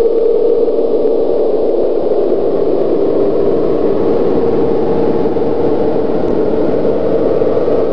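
Loud, steady droning noise of analog-horror sound design: a dense, distorted hum with a held tone in it that fades out about a second in.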